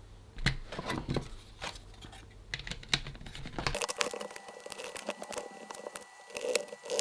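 Small plastic handheld electronic device and tape being handled during reassembly: irregular sharp clicks and crinkly rustling. A faint low hum stops about four seconds in.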